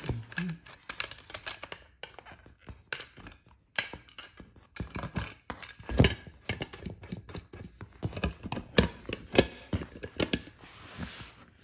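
A carbon-steel folding trench shovel being folded up by hand: irregular clicks, clacks and knocks as the handle sections and blade pivot and knock against each other and the tabletop, with a brief scrape near the end.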